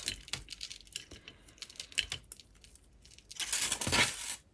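Small clicks and clinks of jewellery being handled as a piece is worked loose from a strand of tiger's eye beads, with a louder rustling stretch about three and a half seconds in.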